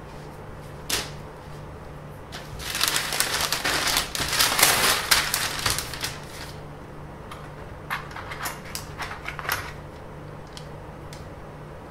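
Large sheet of paper rustling and crinkling for a few seconds as it is shifted on a workbench, followed by a quick series of light taps and clicks as a flexible ruler is laid and pressed onto it. A low steady hum runs underneath.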